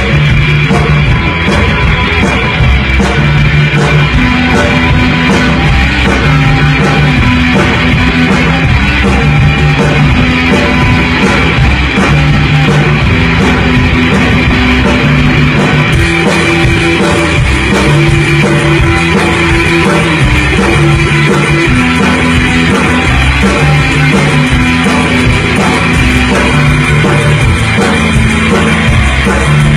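Live rock band playing loud: guitar with bass and drum kit, the low notes repeating a riff.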